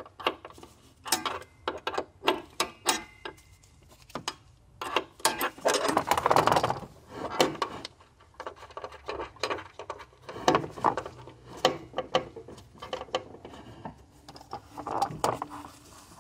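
Metal spanner clicking and clinking on a lock nut, lifted off and refitted again and again to turn the nut a little at a time on the throttle cable's threaded adjuster. A longer scraping rustle comes around six seconds in.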